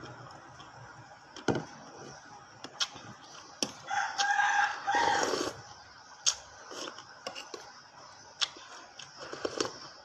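A rooster crows once, about four seconds in, a single call lasting about a second and a half. Sharp clicks and crunches of eating come on and off around it.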